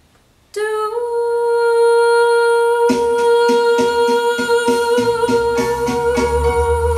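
A woman's singing voice holds one long, steady high note, a blues-jazz vocal line, starting suddenly about half a second in. About three seconds in, a backing track joins with a steady beat, and a bass line enters near the middle.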